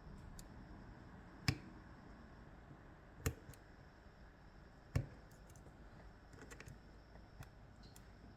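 Sharp metallic clicks from an Ezcurra DS-10 lock and the hand tools working it: three louder clicks about a second and a half to two seconds apart, with a few fainter ticks after them.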